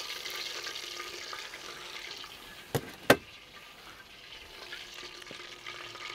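Chicken pieces deep-frying in hot oil, a steady sizzling hiss. Two sharp clicks about three seconds in, a short moment apart.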